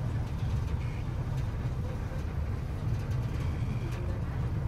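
Tourist river boat's engine running with a steady low rumble.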